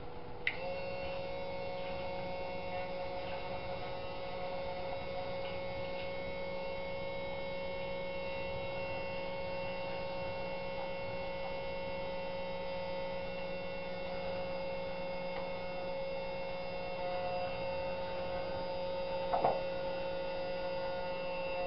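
Milling machine's electric motor switched on with a click about half a second in, then running with a steady multi-tone hum. A short burst of noise comes near the end.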